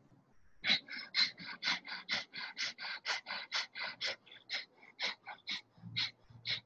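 Breath of fire: rapid, forceful rhythmic exhalations through the nose, about four a second, starting about half a second in after a brief pause.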